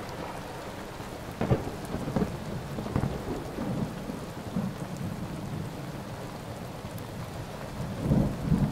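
Thunderstorm: steady rain with low rolls of thunder, one about a second and a half in, another around three seconds, and the loudest pair near the end.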